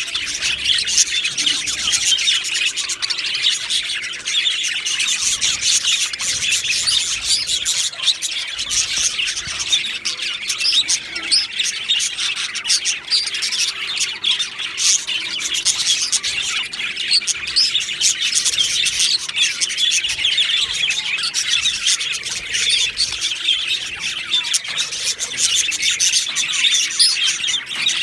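A flock of budgerigars chirping and chattering continuously, many birds at once in a dense, steady chorus.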